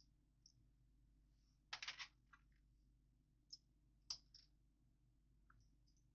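Plastic Lego pieces clicking against each other as they are fitted together: a quick run of clicks about two seconds in, then a few single clicks.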